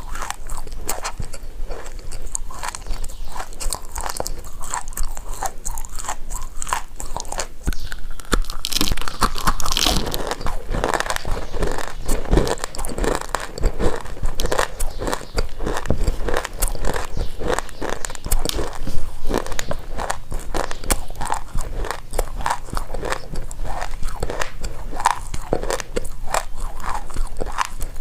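Close-up crunching and chewing of baked loess clay: many sharp, irregular crunches as hard pieces are bitten and ground between the teeth.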